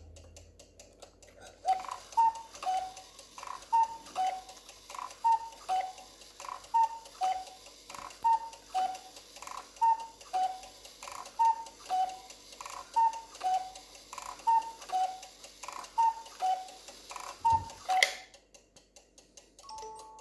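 Cuckoo clock's cuckoo calling, the two-note high-then-low 'cu-ckoo' of its bellows-driven whistle pipes, with a click from the mechanism at each call. It repeats about a dozen times, roughly every second and a half, and stops suddenly near the end. This is a test run after the bellows were refitted.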